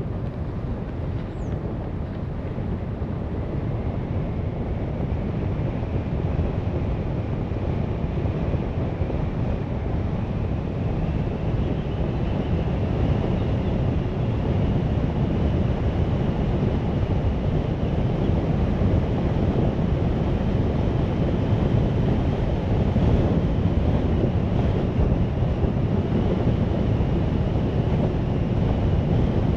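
Steady rumble of road and wind noise from a car on the move, slowly growing louder, with a faint high whine that rises in pitch and then holds.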